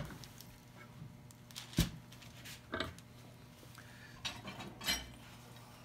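Metal clamps clinking and knocking now and then against each other and the wood as they are set and tightened on a glued-up block: a few sharp, separate clicks.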